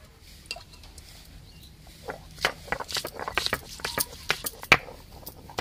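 Stone roller crushing garlic cloves on a wet flat grinding stone: irregular cracks and knocks of stone on stone, starting about two seconds in, the sharpest knock near the end.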